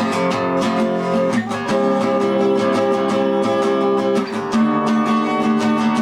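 Acoustic guitar strummed in a steady rhythm, running through the song's repeating chord progression, with chord changes about one and a half seconds and four and a half seconds in.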